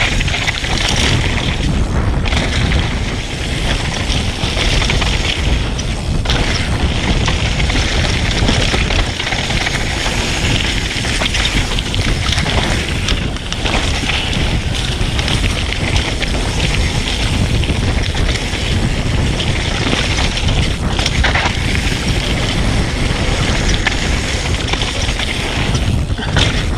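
Mountain bike riding a rough dirt trail: steady wind buffeting on the microphone over the rumble of the tyres and the bike, with a few sharp knocks along the way.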